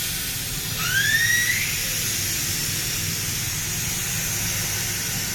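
Air hissing steadily out of a tube-type car tyre as it is deflated, with a brief rising squeal about a second in.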